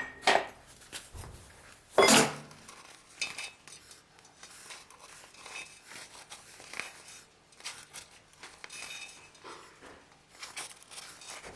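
Metal engine parts and tools clinking and knocking as they are handled on a workbench. There is one loud sharp metallic knock about two seconds in, with lighter clinks scattered after it.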